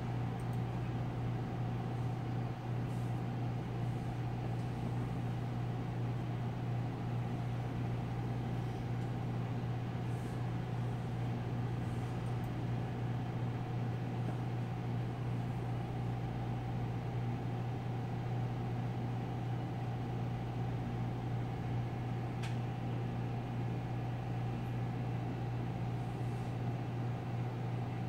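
Steady low hum that runs without change, with a faint click about three-quarters of the way through.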